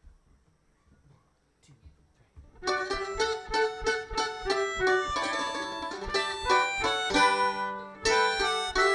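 Acoustic folk string band starting a song: after a near-silent pause, quick plucked string notes come in about two and a half seconds in and carry on as the instrumental intro.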